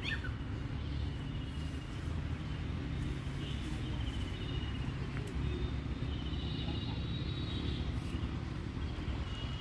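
Riverbank outdoor ambience: a steady low rumble with several short, high, rapid trills of bird calls.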